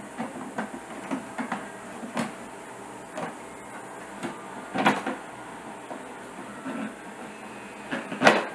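Perforated net housing being fitted onto a convector room heater's plastic body, giving a series of short clicks and knocks as it is pressed and seated, with two louder clicks about five seconds and eight seconds in.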